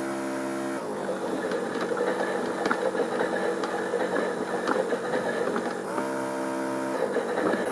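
Battery-powered Theo Klein Miele Novotronic toy washing machine running a wash cycle, its small motor turning the drum with a steady whirring rattle and light clicks. Twice the motor sound steadies into an evenly pitched hum for just under a second, near the start and again about six seconds in.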